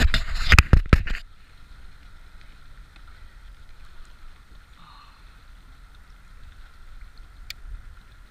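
Loud rustling and a few knocks on the camera for about the first second, then a quiet steady background of wind and water around a kayak, with one sharp click near the end.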